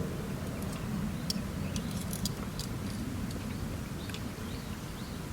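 Wood campfire crackling, with scattered short sharp pops over a steady low rumble.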